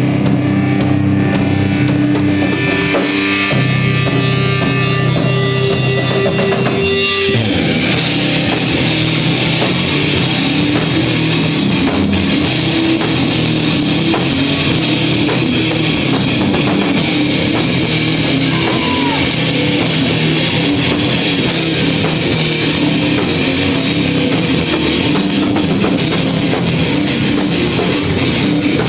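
Live rock band with electric guitar and drum kit. Held notes ring for the first seven seconds or so, then the full band comes in with drums and plays on steadily and loud.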